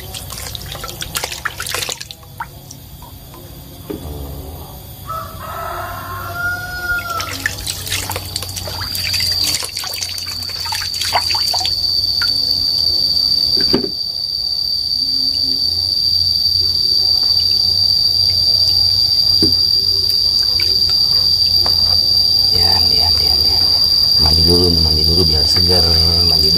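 Water splashing and sloshing in a plastic basin as a snake is dipped and washed by hand. A rooster crows briefly about five seconds in, and from about nine seconds a steady high insect drone sets in and grows to be the loudest sound.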